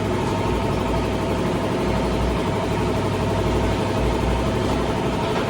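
Steady mechanical drone with a constant low hum and a few held tones above it, like an engine or machine running without change.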